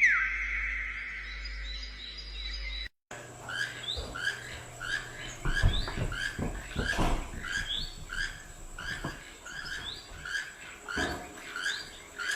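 A small bird chirping over and over, about two short chirps a second, with a few soft knocks mixed in. Before it, for the first three seconds, steady tones with one falling swoop, then a short dropout.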